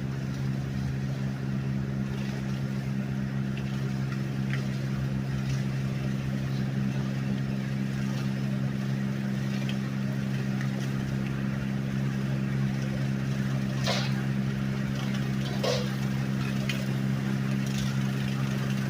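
Tractor engine running steadily at a constant speed, with a few brief light clicks late on.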